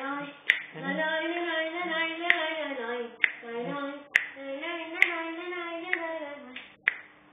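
A voice singing a tune in long, gliding held notes, with sharp hand claps about once a second keeping time. The singing stops shortly before the end, after a last clap.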